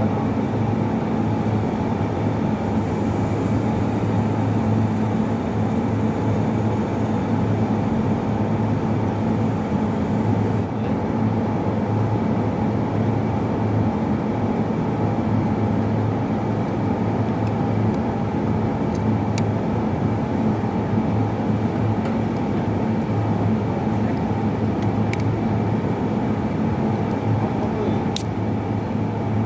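A steady mechanical drone with an even low hum, unchanging throughout, with a few faint clicks in the second half.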